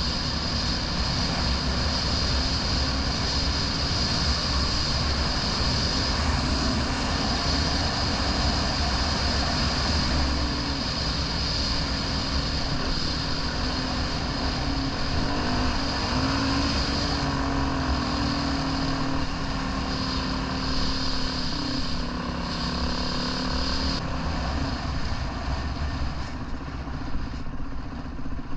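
Dirt bike engine running steadily while riding, its pitch wavering a little with the throttle.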